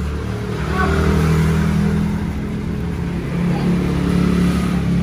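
A motor vehicle engine running, rising in level about a second in and again near the end, as if revved.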